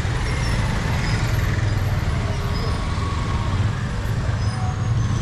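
Busy market street ambience: steady traffic noise with faint voices of passers-by.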